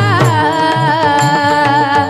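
Marathi kirtan music: a voice holds one long, wavering sung note over a steady harmonium-like drone. Hand-drum strokes keep time underneath, with low bass strokes that bend in pitch.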